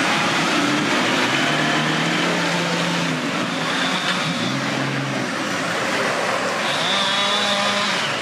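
Off-road 4x4's engine running with its revs rising and falling several times, over a steady rushing noise.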